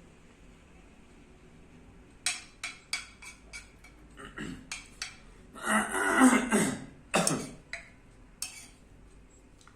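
A person clearing their throat in several short, harsh rasps, the loudest about six seconds in, after a quick run of sharp clicks. Repeated throat clearing of this kind is a vocal tic, as in Tourette syndrome.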